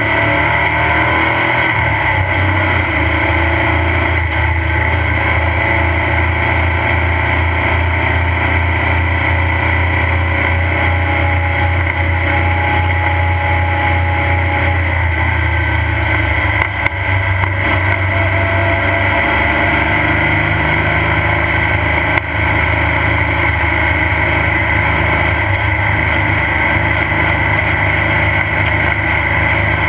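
Off-road race vehicle's engine running steadily as it drives, heard onboard. The engine note shifts to a different steady pitch about two-thirds of the way through.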